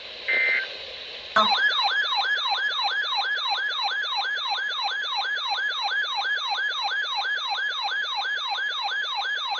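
Electronic siren-like alert tone: a rapid falling yelp repeated about three to four times a second, starting abruptly about a second and a half in. Just before it, a short electronic two-tone beep.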